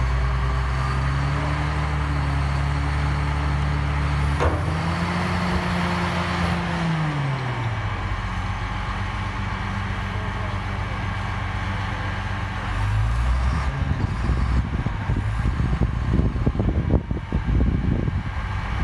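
A heavy machine's engine running steadily, revving up with a click about four and a half seconds in, then winding down and fading by about eight seconds. Irregular low rumbling and knocks follow in the second half.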